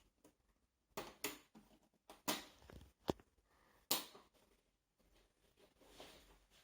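Parts of an LCD TV being handled during disassembly for a backlight repair: five sharp clicks and knocks over about three seconds, then a softer rustle near the end.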